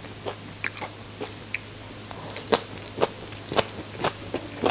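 Close-miked mouth chewing and biting into crispy deep-fried roe-filled fish, with irregular sharp crunches, a few louder ones in the second half.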